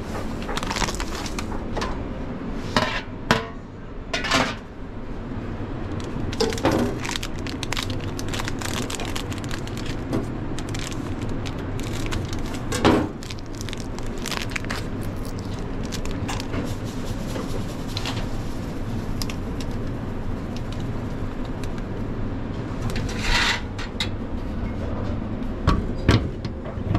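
Kitchen handling sounds: stainless-steel bowls and utensils knocking and scraping on a steel worktop, with scattered sharp clicks, over a steady low hum.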